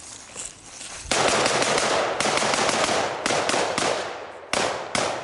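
Rapid rifle fire from an AR-15-style M4 carbine, starting about a second in: a fast string of shots, then a few more spaced shots, each followed by a short echo.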